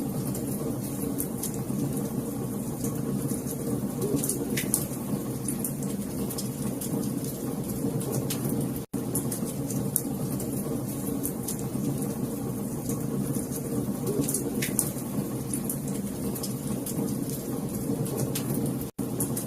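Wood fire in a fireplace crackling, with frequent sharp pops over a steady low rumble. The sound drops out for an instant twice, about nine seconds in and near the end.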